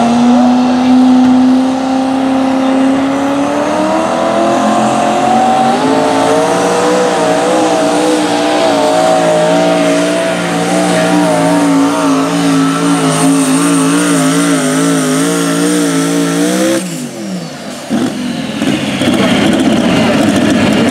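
Modified pulling tractor's engine running loud. Its pitch rises over the first several seconds, then holds with a wavering note. About 17 seconds in it breaks off abruptly, and a rougher full-throttle run follows as the tractor pulls.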